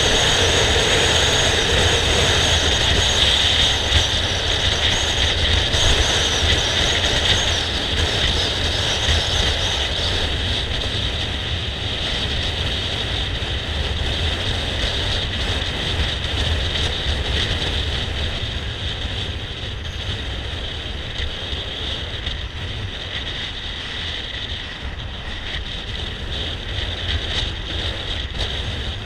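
Motor scooter riding along at road speed: steady wind rush and low buffeting on the camera's microphone over the scooter's small engine and tyre noise. It grows gradually a little quieter.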